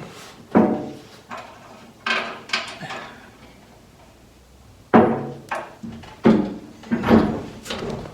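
Sheet-metal body panel and bolts clanking and knocking as the panel is lined up and bolted on: a string of sharp metallic hits with short ringing, quieter for a stretch in the middle, with several closely spaced clanks near the end.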